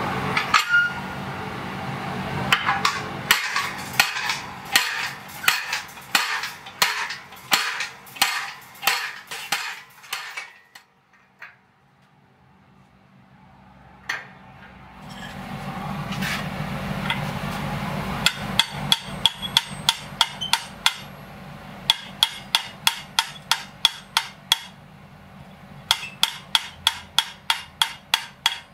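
Hand hammer blows forging a red-hot steel bar, first striking the top of a guillotine fullering tool about twice a second, then after a pause quicker, lighter ringing strikes, about three to four a second, as the hot bar is worked on the anvil horn. A steady low rumble swells during the pause between the two runs of blows.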